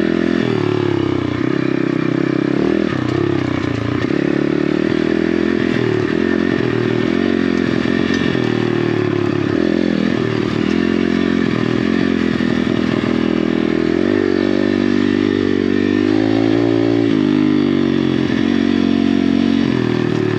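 Apollo RFZ 125cc pit bike's single-cylinder four-stroke engine running under load, its revs rising and falling again and again as the throttle is worked.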